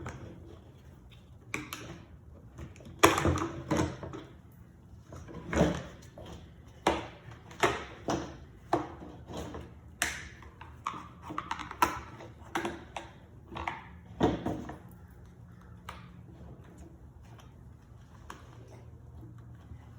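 Irregular clicks, knocks and scrapes of a flathead screwdriver prying rubber grommets out of a Husqvarna 455 Rancher chainsaw's plastic handle, the loudest knock about three seconds in. The tapping stops a little after halfway, leaving a steady low hum.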